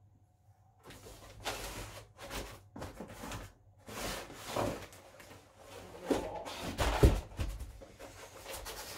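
Bike packaging being handled and pulled away: a string of rustles and scrapes, with a sharp knock about seven seconds in.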